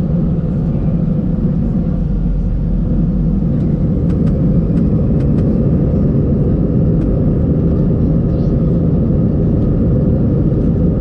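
Jet airliner's engines at takeoff power during the takeoff roll, heard from inside the cabin as a loud, steady low rumble that grows a little louder a few seconds in. A few light rattles come through about four to five seconds in.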